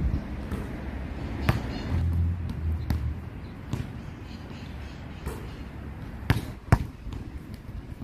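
Basketball bouncing on a hard outdoor court: scattered single thuds a second or more apart, the two loudest close together near the end. A low rumble runs briefly about two seconds in.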